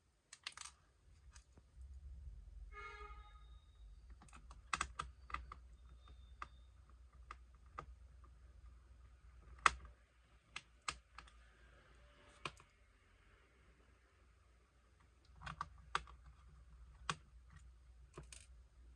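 Scattered small clicks and taps of plastic and metal laptop parts being handled and refitted during reassembly, over a low handling rumble. There is a brief squeak about three seconds in.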